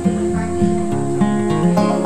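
Background music played on a plucked string instrument: a quick, even run of picked notes.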